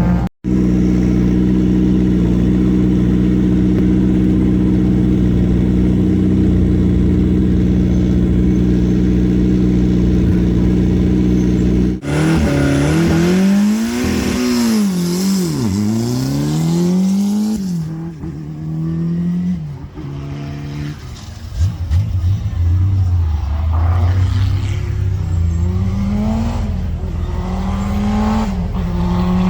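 Historic rally car engines at a stage start: first an engine held at steady high revs, then revs swept up and down in quick blips, then an engine rising through the revs in repeated climbs as it pulls away through the gears. Sudden changes at about 12 s and 18 s mark edits between cars.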